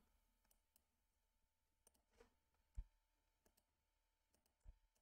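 Near silence: room tone broken by three faint computer mouse clicks, the clearest a little under three seconds in and another near the end.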